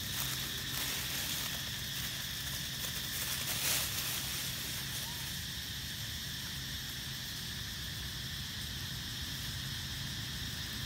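Steady outdoor forest ambience, a constant high-pitched hiss, with a few crackles of dry leaves in the first few seconds as a macaque walks over the leaf litter.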